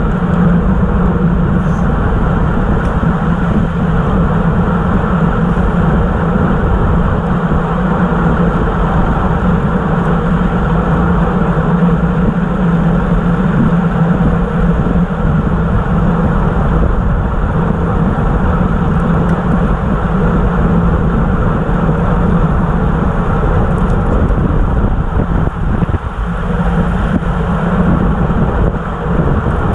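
Steady rush of wind over the camera microphone and road-tyre noise from a road bicycle riding at about 25 mph, with a constant low hum under it.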